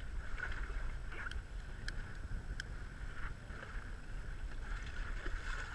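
Motorboat underway: a steady low rumble of the engine and water rushing past the hull, with wind on the microphone. A few faint clicks come about two seconds in.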